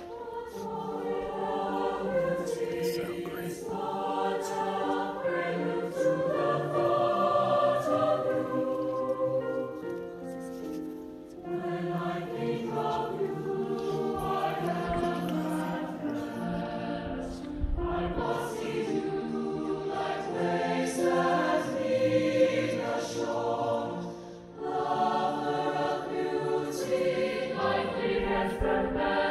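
Large choir singing in full sustained chords, phrase after phrase, with brief breaks between phrases, heard from backstage.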